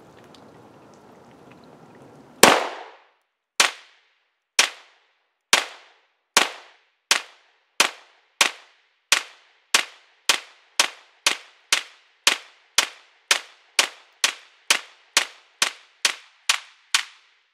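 A Polymer 80 Glock-pattern 9mm pistol fired in a string of about 25 shots. The first shot comes about two and a half seconds in. The shots start about a second apart and quicken to two or three a second, each a sharp crack with a short ringing tail.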